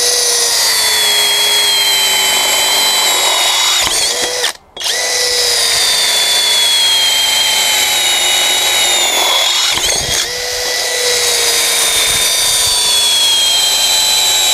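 DCA ADJZ2050i cordless drill running in drilling mode at low speed, its 8 mm metal bit cutting through a thin-walled square steel tube. The motor whines steadily, sagging slowly in pitch under load. It cuts out briefly about four and a half seconds in, then runs on.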